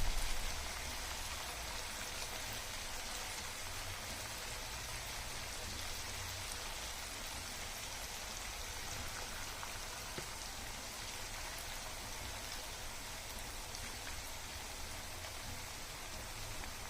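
Masala-battered cauliflower pieces deep-frying in hot oil, giving a steady, even sizzle.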